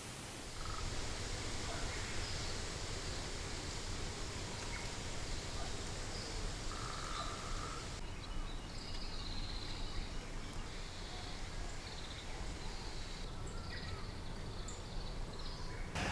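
Steady outdoor background noise with faint, short bird calls scattered through it; the background changes abruptly about halfway through.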